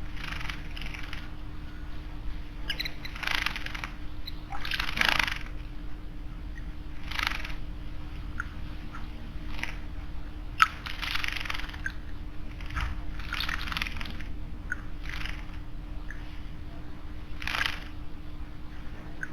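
Small birds bathing in a stone garden water basin: repeated short splashes with wing flutters, coming every second or two, and one sharp click about ten seconds in.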